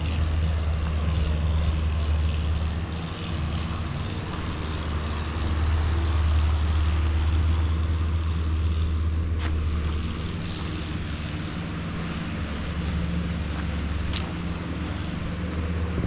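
Steady low drone of a motor engine running, swelling and easing a little in loudness, over a constant hiss. A couple of faint sharp ticks come in the second half.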